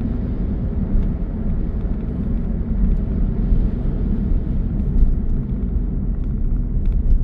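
Steady low rumble of a car in strong wind, heard from inside the cabin, with a few faint light ticks in the second half.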